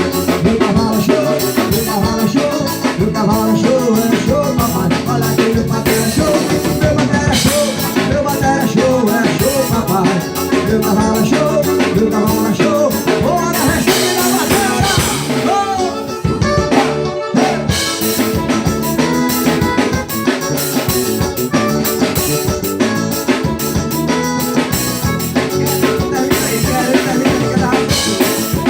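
Forró band music playing, an instrumental stretch with a steady drum-kit beat, rimshots and guitar.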